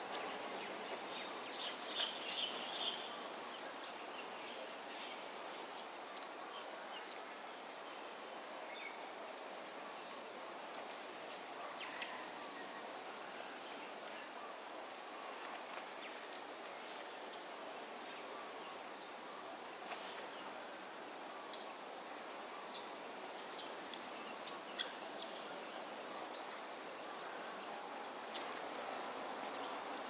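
A steady insect chorus of several high, unbroken tones over a constant background hiss, with a few short sharp chirps or clicks: a cluster about two seconds in, one in the middle and a couple near the end.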